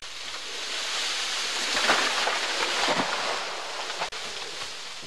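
Tall tulip poplar falling: a rising rush of leaves and branches through the air, crashing down about two seconds in with a second crash about a second later, then dying away.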